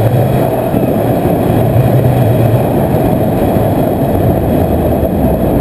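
Loud, steady wind buffeting the microphone of a camera rigged to the canyon swing rope as the rider sweeps through the arc at speed.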